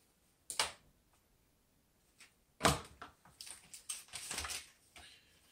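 Handling noises: a sharp click about half a second in, a louder knock at about two and a half seconds, then a second or so of clattering and rustling as cables and parts are picked up and moved.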